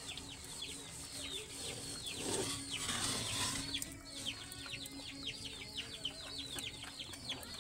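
Chicks peeping over and over: short high falling notes, several a second. A short burst of noise about two seconds in.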